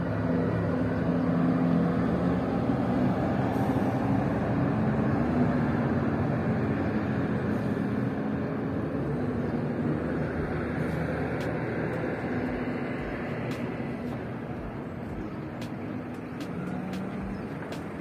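Street traffic: a motor vehicle's engine running close by, loudest in the first few seconds and then slowly fading, with a few sharp clicks near the end.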